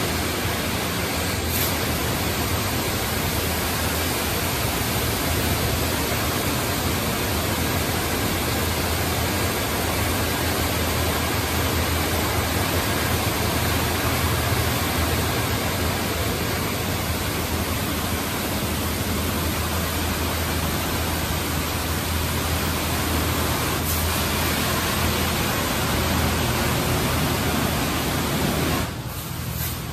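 High-pressure water spraying from the gantry jets of a D&S 5000 touchless car wash onto a pickup truck: a loud, steady hiss with a low hum underneath, dropping off suddenly near the end.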